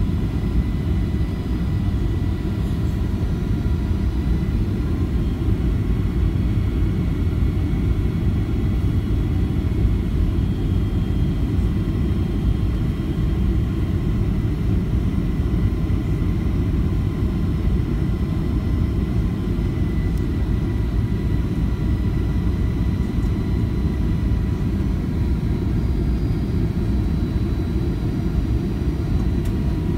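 Steady low rumble of airliner cabin noise during the descent to landing, heard from a window seat, with faint steady high tones running through it.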